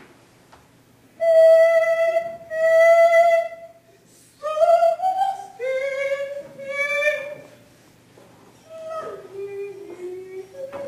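A voice singing a slow tune: two long held notes, then several notes that slide upward, then softer lower notes near the end.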